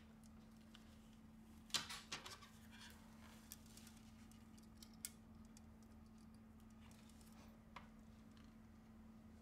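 Near silence with a steady low electrical hum, broken by a short cluster of small clicks and taps about two seconds in and a few single clicks later: small phone parts (the frame, screen assembly and home-button flex) being handled and fitted together.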